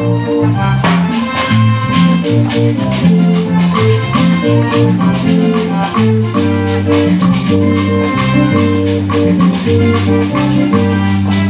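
Live Latin dance music from a band, with a moving bass line under a quick, steady percussion beat of shakers and strokes.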